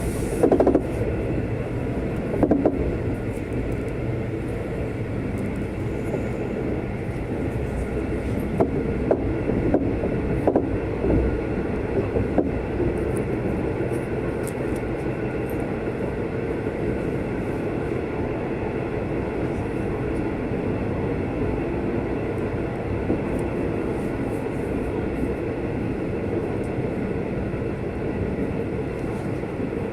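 A V/Line loco-hauled passenger train running on the rails: a steady rumble of wheels on track, with a few sharp knocks in the first dozen seconds.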